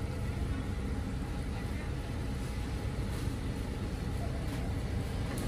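Steady low background rumble with faint voices mixed in, and a couple of faint clicks.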